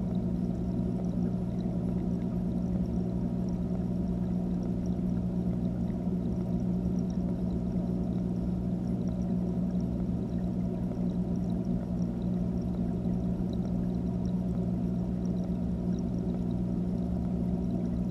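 Steady low hum and water rush of an aquarium pump, heard underwater inside the fish tank, with faint scattered ticks above it.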